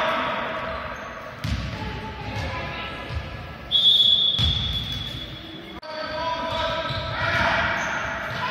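Indoor basketball game: a referee's whistle blown in one long blast about four seconds in, which is the loudest sound, over voices calling out, the basketball bouncing and thudding on the wooden court, all echoing in the hall.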